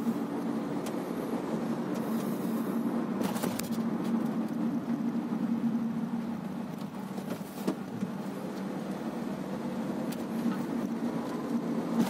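Inside the cabin of a moving Honda Civic: its engine and road noise run steadily as it drives, with the engine note rising slowly over the last few seconds. A couple of brief knocks come through, about three seconds in and again past halfway.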